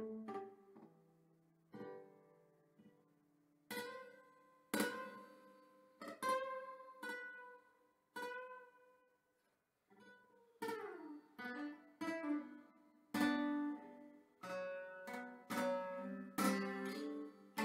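Solo acoustic guitar: single plucked notes and chords, each ringing out and fading, with pauses between them. One note slides down in pitch about eleven seconds in, and the playing gets busier in the last few seconds.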